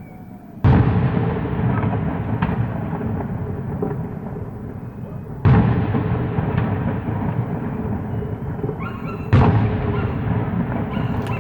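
Three aerial firework shells bursting, about five and four seconds apart. Each is a sudden loud bang followed by a long rolling echo that slowly fades, with a few faint crackles in between.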